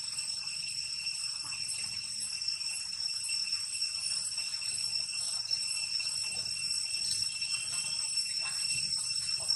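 Steady, shrill insect chorus: a continuous high drone held at a few fixed pitches, with no breaks. A couple of faint brief calls come near the end.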